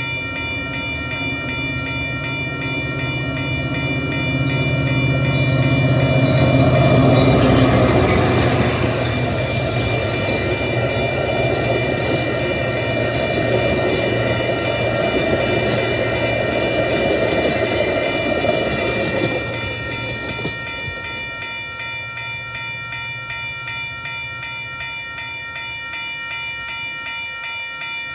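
Diesel-hauled train passing close by, loudest about seven seconds in, with wheels clicking over the rail joints. Its noise drops off sharply about two-thirds of the way through. A steady ringing of several high tones with a fast, even repeat runs under it throughout.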